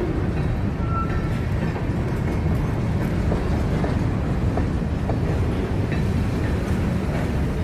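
Steady low rumble of a train running on the track, with a few faint clicks.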